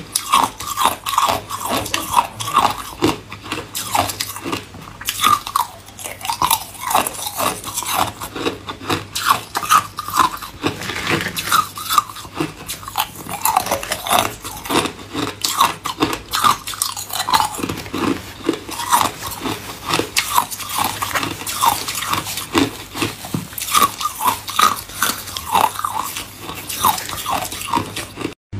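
Hard ice cubes being bitten and chewed: a continuous run of sharp, brittle crunches, two or three a second.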